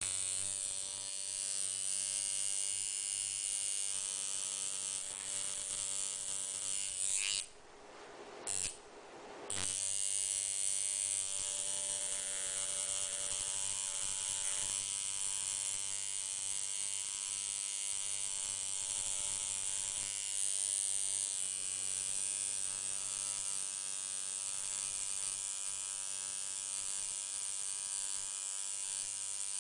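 Steady electric buzz of a small motor. It cuts out for about two seconds around eight seconds in, with a brief burst in the middle of the gap, then runs on unchanged.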